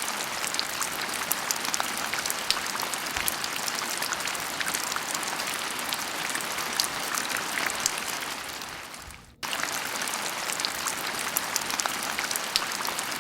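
Steady rain falling, a dense patter of many drops. It fades away about two-thirds through, then starts again abruptly.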